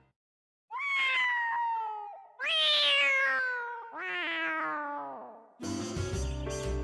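Cartoon cat meowing: three long, drawn-out meows one after another, each sliding down in pitch. Music starts near the end.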